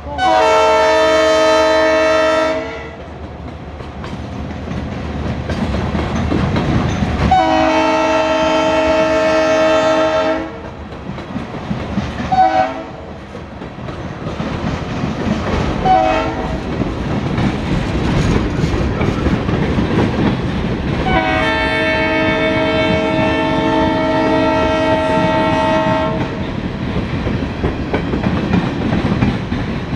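Norfolk Southern diesel locomotive's air horn sounding at a crossing: two long blasts, a short one, and a final long blast, the grade-crossing signal. Underneath is the steady rumble of the train rolling by, with wheels clacking over the rail joints.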